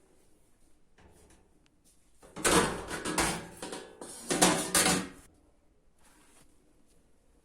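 Two bursts of clattering handling noise, each about a second long, a little under a second apart.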